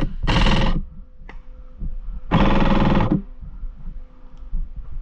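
An airsoft electric gun firing two short full-auto bursts, about two seconds apart, each a rapid mechanical rattle of the motor and gearbox cycling.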